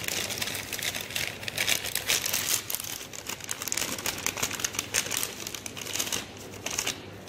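Plastic packaging of an IV giving set crinkling and rustling in gloved hands as it is opened, an irregular crackle that eases off near the end.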